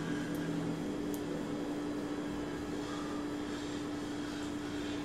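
Steady mechanical hum of a running appliance or fan, with one constant pitched tone over an even whir.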